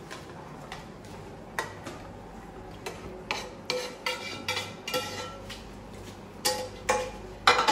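Metal serving spoon scraping and clinking against a frying pan as penne pasta is pushed out of the pan into a bowl. An irregular run of clinks and scrapes, busiest in the middle and again near the end.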